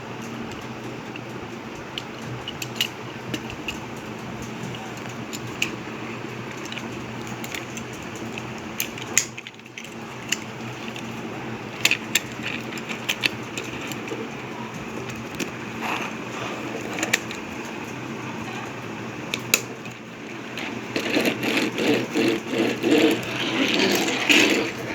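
Plastic transforming toy car: scattered sharp clicks and snaps of its parts over a steady hum, then a rapid, louder pulsing mechanical buzz in the last few seconds.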